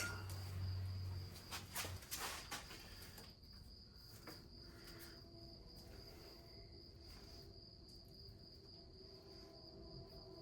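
A cricket chirping steadily in a high, pulsing trill, with a few sharp metal tool clicks in the first seconds.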